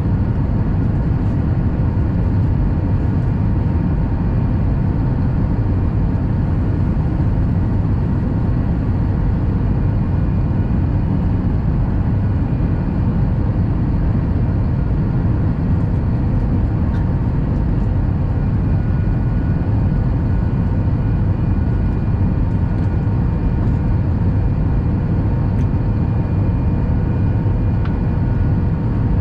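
Steady cabin noise of a jet airliner descending on approach: a deep, even rumble of airflow and engines, with a faint steady whine of several tones from the engines.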